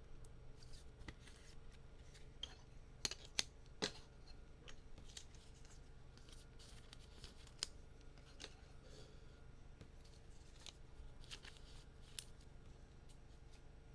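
Faint snips, clicks and rustles of a foil trading-card pack being cut open and the cards handled, with a few sharper clicks about three to four seconds in. A faint steady hum lies underneath.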